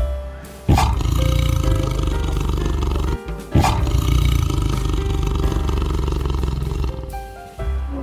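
Tiger roaring twice, a long roar starting about a second in and another at about three and a half seconds, over background music.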